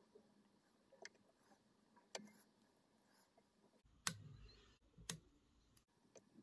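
Small scissors snipping twice, two sharp clicks about a second apart, trimming at a fly-tying vise, after a few faint clicks of thread and fingers handling the fly.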